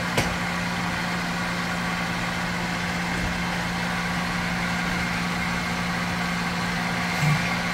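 A steady machine hum with a strong low tone, broken by a sharp click just after the start and a short knock near the end.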